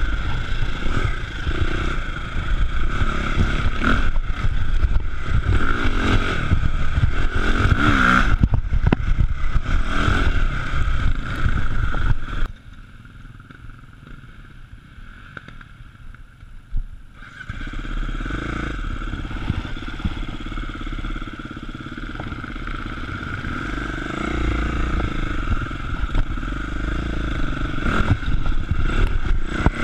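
KTM enduro dirt bike engine running as it is ridden over a rough forest trail, with rattling over the bumps. About twelve seconds in the sound drops sharply for about five seconds, then the engine noise picks up again.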